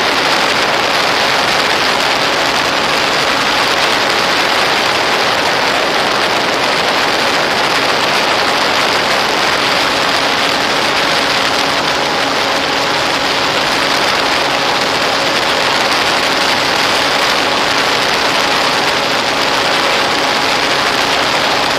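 Steady loud rushing noise with a faint, even hum underneath, as picked up on an RC plane's onboard FPV camera in flight: airflow over the microphone and the electric motor and propeller.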